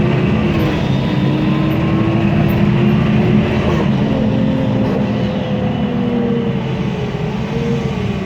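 MAN Lion's City CNG bus with its MAN E2876 LUH03 natural-gas engine and ZF Ecolife automatic gearbox running under way: a loud, steady drone with a whine that rises slowly and drops back twice, then a higher whine that slowly falls and wavers.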